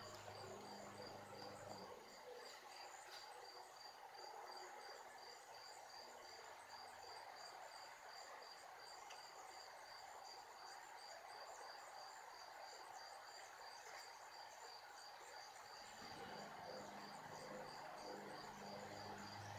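Faint crickets chirping in a steady, even rhythm. A low hum is also heard in the first two seconds and again from near the end.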